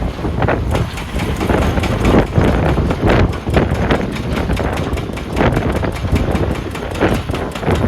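Heavy wheel loader's diesel engine running loudly and steadily, with irregular knocks and clatter over it.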